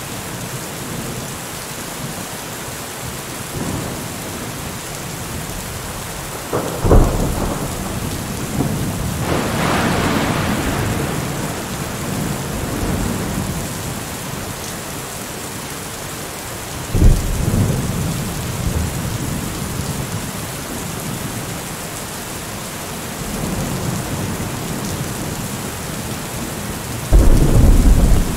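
Steady rain in a thunderstorm. Sudden thunderclaps come about a quarter of the way in, a little past halfway and near the end, and a long rolling rumble follows the first.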